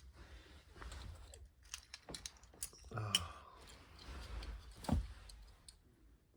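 Light clicking and clatter of small diecast toy cars being handled, with a sharper click about five seconds in. A brief vocal sound comes about three seconds in.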